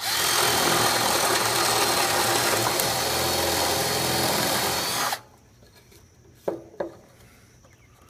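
Cordless drill running steadily as its bit bores a hole through a pine board for a half-inch dowel, stopping suddenly after about five seconds. A couple of light knocks follow.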